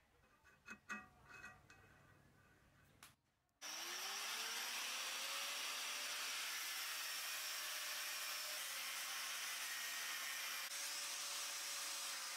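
A few faint clicks and taps, then about three and a half seconds in an electric angle grinder starts, its pitch rising as it spins up, and runs steadily with a loud hiss as its cut-off disc cuts into the end of a steel bolt.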